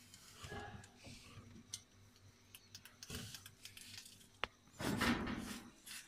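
Handling noises at an open refrigerator: scattered clicks and light knocks, a sharp click about four seconds in, then a louder scraping rustle about five seconds in.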